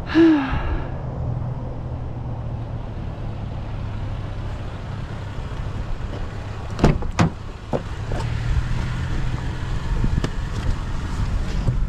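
Vehicle engine running with a steady low hum, with a short squeak right at the start and two sharp knocks about seven seconds in.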